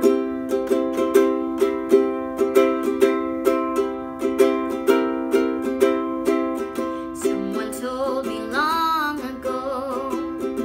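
Ukulele strummed in a steady rhythm, about two to three strums a second, playing a song's chord intro. Near the end a young woman's singing voice comes in over it.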